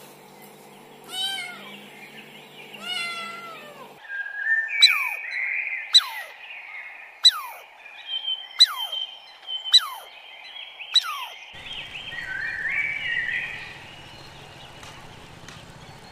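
A cat meows twice, then a bird gives six sharp calls, each dropping quickly in pitch, about one every second, followed by softer chirping over outdoor background noise.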